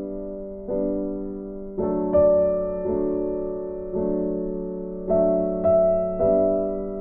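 Background music: slow, gentle piano, with notes and chords struck about once a second and left to ring and fade.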